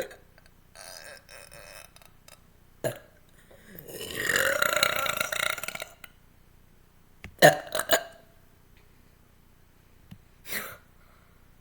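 A person burping deliberately. There is one long, drawn-out burp of about two seconds starting about four seconds in, then a quick run of short burps a few seconds later and another single one near the end.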